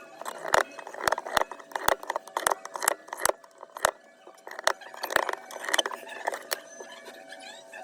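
Small metal repair tools clicking and tapping against a phone, about two sharp clicks a second, giving way to softer scraping in the last couple of seconds.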